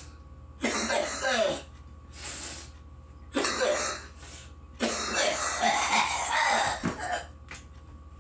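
A person coughing hard in three harsh fits, the last one the longest at about two seconds, with a fainter burst between the first two; a smoker's coughing from the lungs' irritation after a big bong hit.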